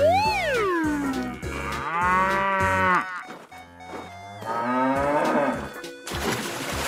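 Cow mooing twice, each moo over a second long, over background music. It opens with a tone that swoops up and then down.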